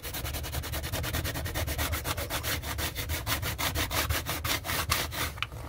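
A small plastic lid scrubbed rapidly back and forth over rust-stained fibreglass gelcoat, a fast, even rasping scrape, working the rust remover into the stains. The strokes stop shortly before the end.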